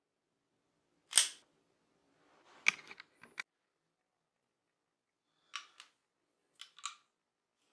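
SIG Sauer P226 pistol being dry-fired and handled: a sharp metallic click of the hammer dropping about a second in, the loudest sound, then a quick cluster of smaller clicks. Several lighter metallic clicks follow near the end.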